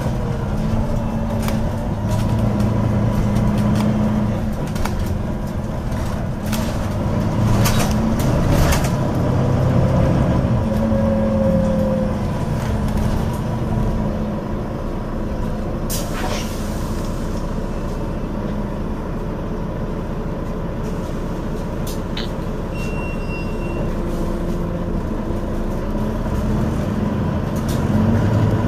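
Dublin Bus GT-class bus heard from inside while under way: its diesel engine runs and shifts in pitch as the bus pulls along, with scattered rattles and clicks from the cabin fittings. A short hiss of air comes about sixteen seconds in.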